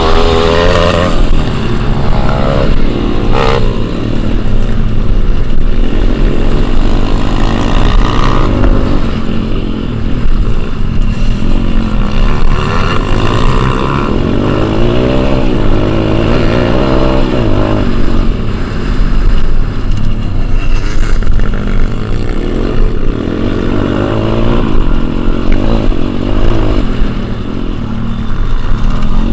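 Dirt bike engine ridden hard, heard close up: its pitch rises and falls again and again as the throttle opens and closes and the gears change, with wind rumbling on the microphone.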